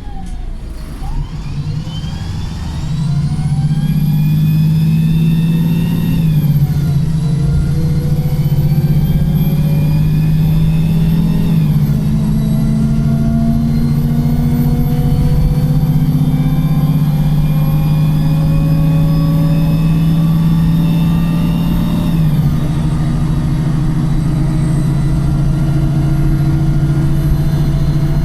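A Wright Pulsar single-deck bus pulling away and accelerating hard from inside the saloon. A loud whine from the whiny gearbox and differential climbs in pitch, drops back at gear changes about 6 and 12 seconds in, then rises slowly and steadily before falling away a little after 22 seconds as the bus eases off.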